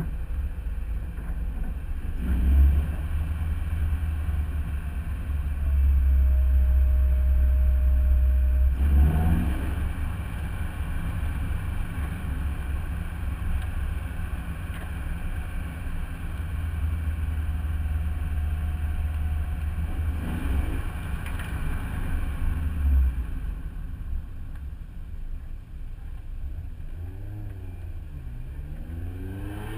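Car driving slowly, its engine a low steady drone under heavy wind rumble on a camera mounted low on the bodywork. Brief swells in engine pitch come at about 2, 9 and 21 seconds in, and a wavering rise and fall of pitch comes near the end.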